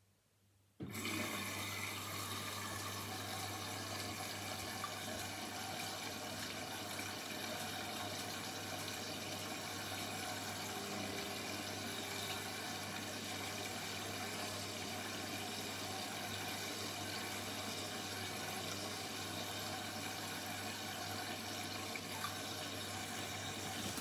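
Indesit front-loading washing machine taking in water: the rush of water starts abruptly about a second in and then runs steadily, over a constant low hum.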